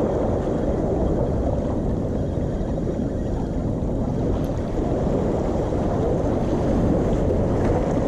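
Steady low rushing of wind and sea water washing among concrete breakwater tetrapods, with wind rumbling on the microphone.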